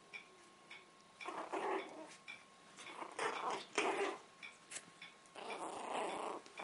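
Puppies growling at each other in play, in three bursts of about a second each.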